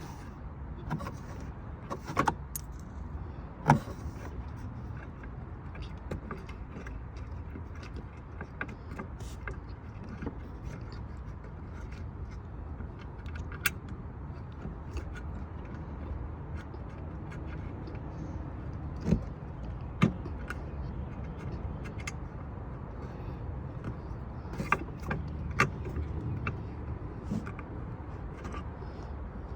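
Scattered metallic clicks and clinks of a wrench and metal parts as a replacement car horn is bolted into place, over a steady low rumble.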